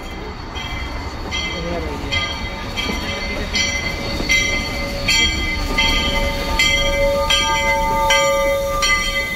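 Steam locomotive bell ringing at a steady pace, about one stroke every three-quarters of a second, getting louder as the locomotive comes alongside, over the low rumble of the train.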